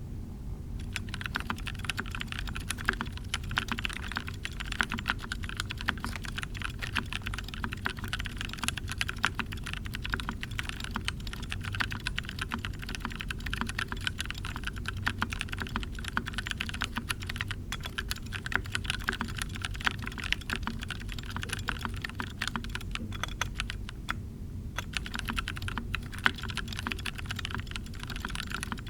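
Continuous typing on a mechanical keyboard with lubed 65 g purple Zealios tactile switches: a dense stream of soft key clicks, with a short pause near the end. It sits over a steady low background noise.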